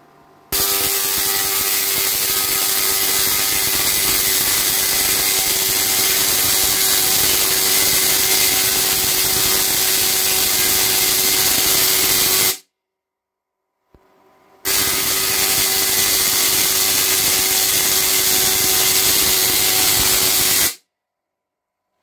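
Spark-gap Tesla coil powered by two microwave-oven transformers, with a rotary spark gap and a single 220 nF capacitor, firing long arcs: a loud, steady buzzing crackle. It switches on about half a second in, cuts off abruptly, then runs again about two seconds later before stopping abruptly near the end.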